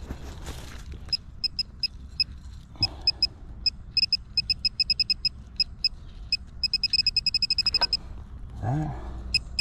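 Metal detector pinpointer beeping in short, same-pitched chirps as it is worked around a dig hole, scattered at first and then a fast run of beeps for about a second as it closes on the target, a small piece of bullet lead. A short hum of a man's voice near the end.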